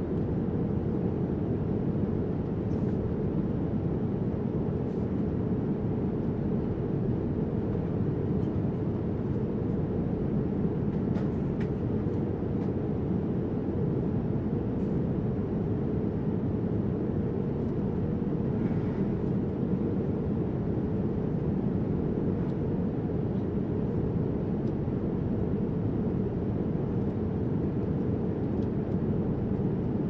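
Jet airliner cabin noise in cruise: a steady low roar of engines and airflow, with a few faint clicks.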